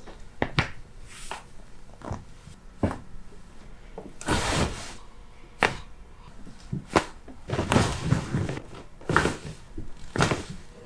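A string of sharp, irregularly spaced cracks and pops from joints being adjusted by a chiropractor, with two longer rustling stretches of the patient shifting on the treatment table.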